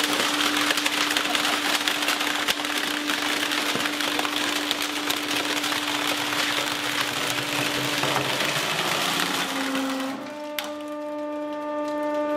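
A hydraulic press crushing a plastic-cased printer: dense cracking and splintering of the plastic housing and internal parts, over a steady hum. The crushing stops about ten seconds in, leaving the hum.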